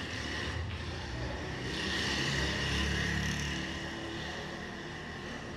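A motor vehicle passing, its engine noise swelling to a peak about three seconds in and then fading, over a steady high tone.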